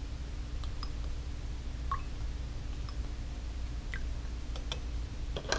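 Faint, scattered small clicks and drips, about one a second, as liquid is dripped slowly from a straw into a glass of layered liquids, with a slightly louder click near the end. A steady low hum runs underneath.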